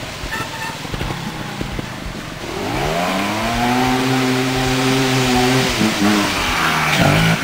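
TRS 250cc two-stroke trials motorcycle engine: quieter at first, then revving up about two and a half seconds in and held at high revs for a few seconds as the bike climbs, before the revs drop and pick up again near the end.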